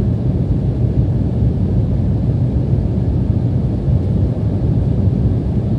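Steady low rumble of a jet airliner in flight, heard inside the passenger cabin.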